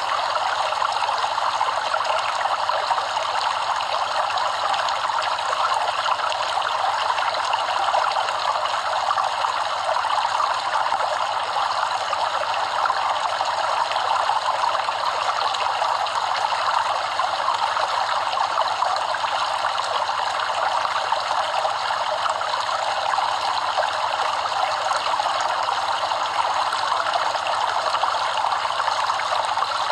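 Stream of running water flowing steadily over rocks, an even splashing and babbling rush with no breaks.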